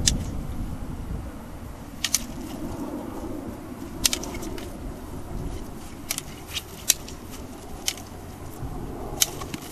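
Sparring sticks clacking together in sharp, single or doubled knocks every second or two, over a steady low rumble of wind on the microphone.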